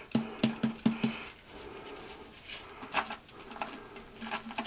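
Canister of Bar Keepers Friend powder cleanser shaken and tapped to sprinkle powder onto a wet scouring pad: a quick run of light taps, about four a second, during the first second, then a few softer scattered taps.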